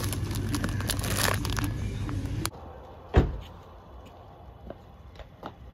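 Supermarket ambience with a steady low hum and rustling, clicking plastic as a bag of dried pasta is handled on the shelf. It then drops to a quiet outdoor background with one loud thump about three seconds in.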